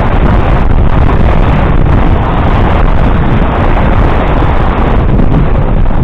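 Wind buffeting the camera's microphone while cycling: a loud, steady rumble.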